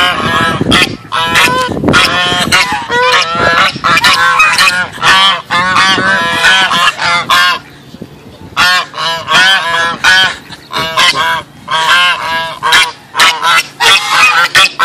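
White domestic geese honking loudly and repeatedly, several birds calling over one another, with a brief lull about eight seconds in.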